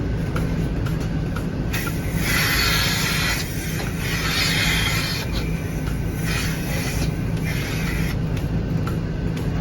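Dairy milking-machine vacuum system running with a steady low hum, with four bursts of hissing air as teat cups are put on the cows and draw in air; the longest burst comes about two seconds in.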